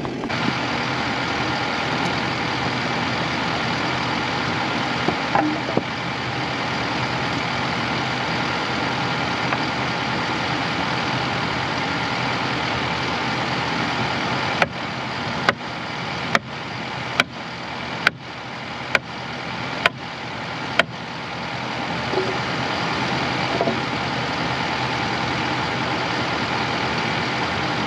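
Diesel engine of a Takeuchi compact track loader running steadily. Partway through, eight sharp pops come just under a second apart.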